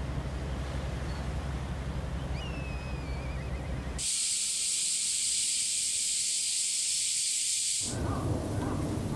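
Outdoor ambience with a low rumble and a short chirp about two and a half seconds in, then a loud, steady high-pitched hiss that cuts in abruptly about four seconds in and stops just as abruptly near the end.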